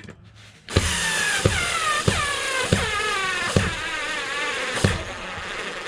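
Power drill driving a screw into the camper's thin wood, starting about a second in. The motor whines with a wavering pitch that sags and recovers under load with a knock roughly every two-thirds of a second.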